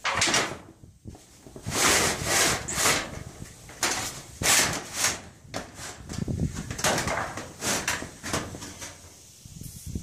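An old sheet of corrugated tin being slid and scraped over ribbed metal roofing panels, in a run of short, uneven pushes with metal-on-metal scraping and rattling.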